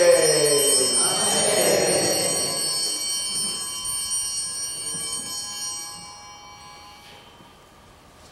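Small hand bell rung, its many high ringing tones sustaining and then fading away over about six seconds.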